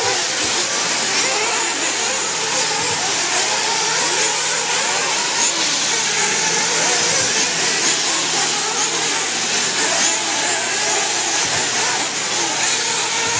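Several 1/8-scale nitro buggy engines running together, a steady high-pitched din with pitch rising and falling as they rev on and off the throttle.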